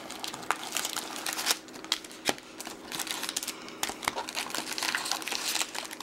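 Crinkling and crackling of trading-card pack wrappers and box packaging being handled, with many sharp snaps.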